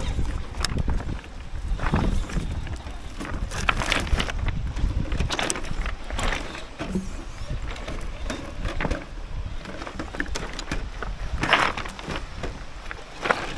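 Yikong YK4083 1/8-scale RC crawler driving over loose beach pebbles: stones crunching and clattering irregularly under its tyres, over a steady low rumble of wind on the microphone.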